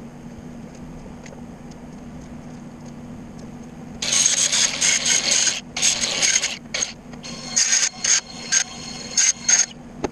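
Wire-feed (MIG) welder arcing on steel strut in a series of short welds: crackling bursts start about four seconds in, first one of about a second and a half, then shorter tacks in quick succession. A steady low hum runs underneath.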